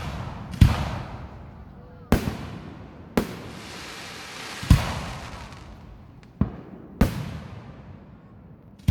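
Fireworks going off: six sharp bangs over about seven seconds, each fading away over a second or so, with a hiss running between the third and fourth.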